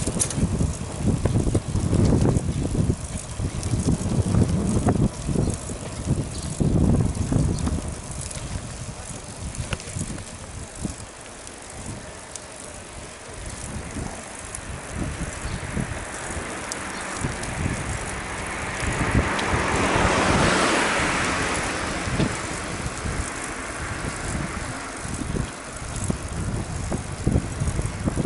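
Riding a bicycle on a road, with wind rumbling on the microphone, strongest in the first several seconds. A car approaches and passes about twenty seconds in, its noise swelling and then fading.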